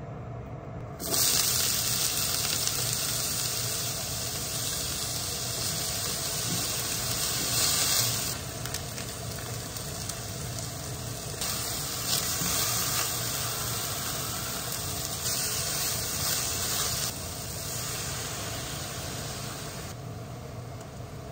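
Sliced lotus root and carrot sizzling in hot oil in a frying pan, starting suddenly about a second in and swelling and easing as they are stir-fried with a spatula. The sizzle dies down near the end.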